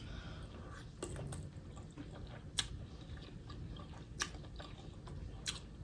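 A person chewing a mouthful of spicy beef sausage close to the microphone, faint, with a handful of sharp wet mouth clicks and smacks.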